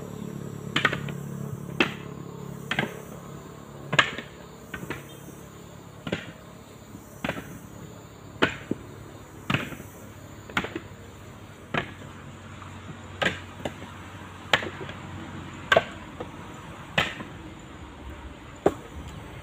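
Husked coconuts tossed one at a time onto a pile as they are counted, each landing with a sharp knock, about one a second.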